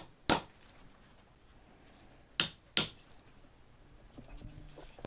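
Ball-peen hammer striking a blunt steel chisel set on the wooden wedge in an axe eye: sharp metal-on-metal strikes, one just after the start and two more in quick succession about two and a half seconds in, driving the wedge deeper into the handle to tighten the loose axe head.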